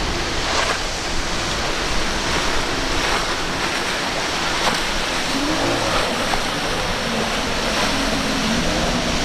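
Surf and churning water with wind on the microphone. Under it, a boat's outboard engines are faintly heard, their pitch wavering up and down in the second half as the hull rides the waves.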